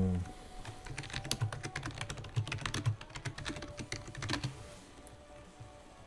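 Typing on a computer keyboard: a quick run of keystrokes for about four seconds that stops near the end.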